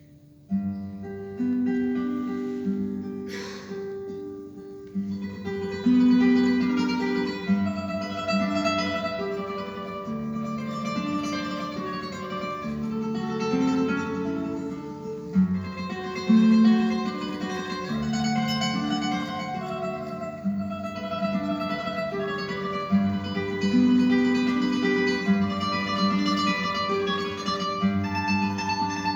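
Solo classical guitar playing in tremolo, a fast repeated melody note over moving bass notes.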